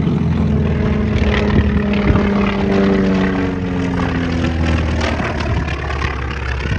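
Propeller aircraft engine running loud as the aircraft passes, its note sliding slowly down in pitch.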